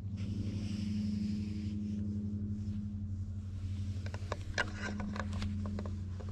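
A low, steady pulsing hum throughout, with rustling and scratching from a hand stroking a cat's fur from about four seconds in.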